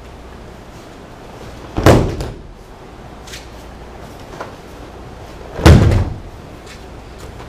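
Two heavy thumps of a person being thrown and landing in a breakfall on a padded dojo mat, about two seconds in and again near the end.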